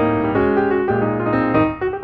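Background piano music, a steady run of gently struck notes.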